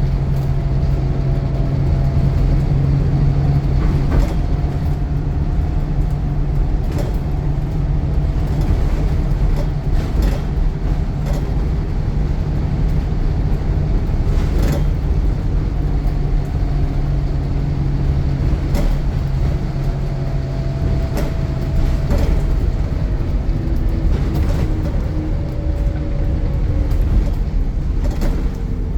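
Bus engine working hard under load, a steady drone with a turbocharger whistle drifting up and down in pitch above it, and occasional knocks and rattles from the bus body. The engine drone eases off about three-quarters of the way through.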